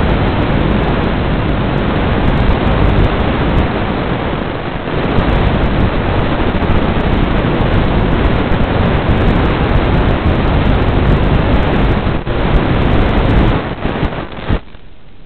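Loud, steady static hiss from an analog FPV video link breaking up, with no motor tones in it; it cuts off suddenly about a second before the end.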